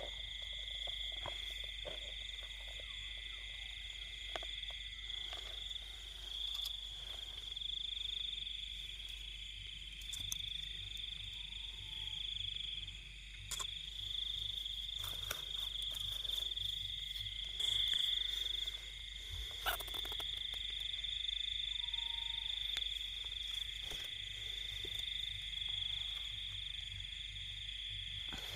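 Night chorus of frogs and insects: a steady, high, unbroken trilling, with scattered clicks and rustles throughout.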